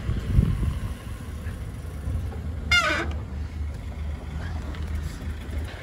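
Low rumble of a push bike rolling on a tarmac lane, with a van's engine running close ahead. About three seconds in, a short squeal sweeps down in pitch.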